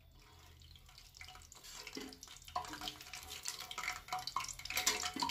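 Battered cauliflower pieces frying in hot oil in a kadhai: a crackling, spattering sizzle that starts faint and grows louder over the seconds, as the light-golden pieces are scooped out with a metal slotted skimmer.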